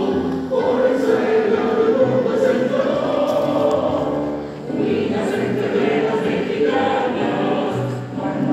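A group of voices singing a Spanish-language hymn together as a choir.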